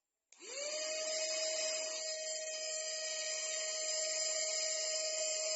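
Portable mini handheld vacuum cleaner switched on about a third of a second in: its small motor spins up quickly to a high, steady whine with a rush of air, and runs on evenly.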